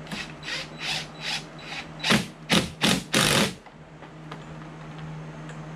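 DeWalt cordless impact driver tightening a bracket bolt in short trigger bursts: several light blips, then three or four loud ones around the middle, the last held for about half a second as the bolt is driven home.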